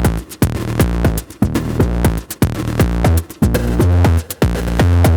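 Electronic dance music with a steady, driving beat and a heavy bass line.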